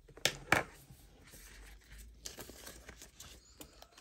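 Paper and plastic rustling and crinkling as cash and budget envelopes are handled, with two sharp loud crackles in the first second and softer rustling after.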